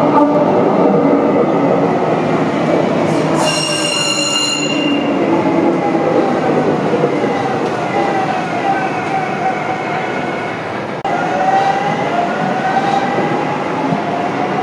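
Lille tram, a Breda VLC light-rail car, running through an underground tunnel and station: a steady rumble of wheels on rail, a brief high-pitched tone about three seconds in, then an electric drive whine that slides down and back up in pitch.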